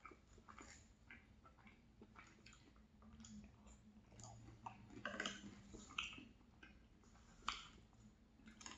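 Soft mouth sounds of someone eating ice cream and crumbled almond raspberry tart: scattered wet chewing and small clicks and smacks, a little louder around the middle and a sharp click near the end.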